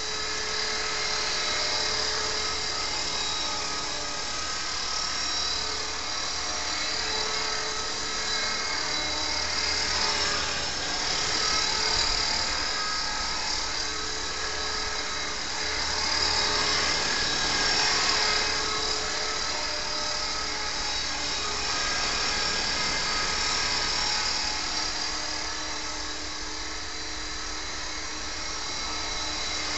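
Radio-controlled model helicopter in flight: its motor and rotor blades give a steady high whine that swells and eases as it manoeuvres.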